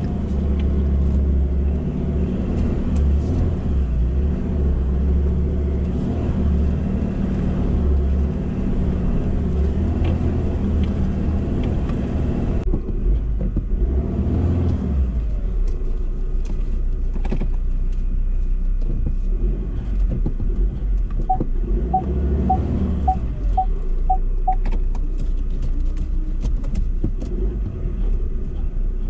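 Ford Ranger heard from inside the cab, its engine running at low revs with a steady low rumble as it crawls over a rough track. Midway through there is a short run of about seven evenly spaced beeps, and near the end occasional light knocks.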